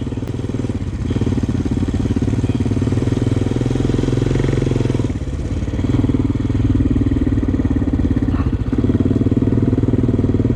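2014 Honda 400X sport quad's single-cylinder four-stroke engine running steadily under way on a trail, its note dipping briefly and changing three times.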